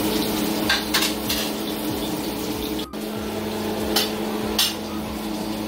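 Onions frying in a nonstick pan, sizzling steadily, with a handful of short scrapes and clinks of a spoon stirring against the pan, over a steady hum.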